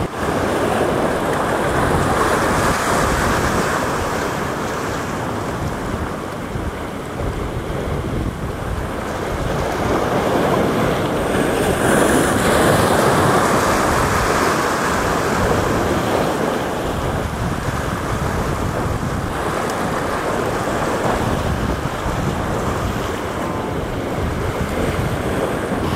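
Wind buffeting the microphone over the steady rush of waves and moving water, swelling a little about halfway through.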